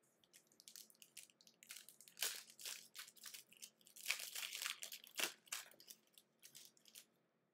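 Foil wrapper of a trading card pack crinkling and tearing open by hand, in a run of short rustles that are loudest about two seconds in and again between four and five seconds in.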